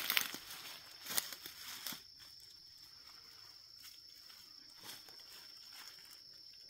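Footsteps crunching and rustling through dry fallen leaves for about the first two seconds, then quieter, with crickets' steady high trill and a faint rustle near five seconds in.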